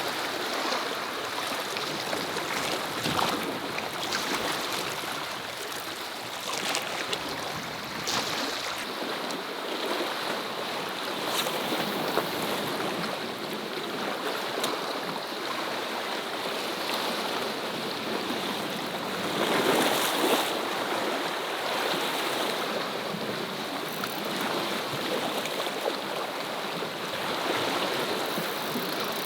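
Seawater washing and splashing over shore rocks in a steady wash, with one louder surge about two-thirds of the way through.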